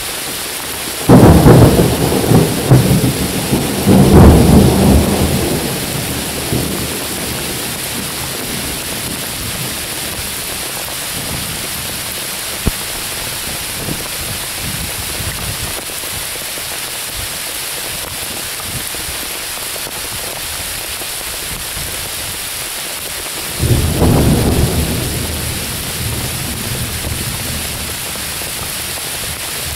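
Steady rain hissing on forest leaves. A loud thunderclap breaks suddenly about a second in and rumbles, swelling again a few seconds later before dying away. A second, shorter peal of thunder comes near the end.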